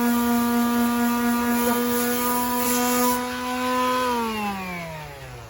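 Power sander running at a steady high speed on the car's trunk paint, then switched off about four seconds in, its pitch falling as it winds down.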